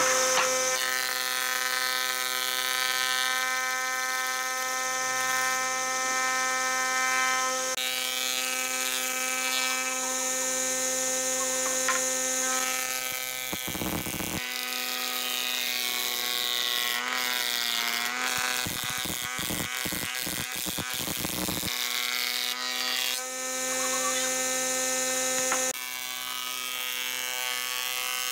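Combination planer-thicknesser running with a steady whine as its cutterhead planes pine boards. About halfway through there is a short burst of rougher cutting noise, followed a few seconds later by a quick series of knocks.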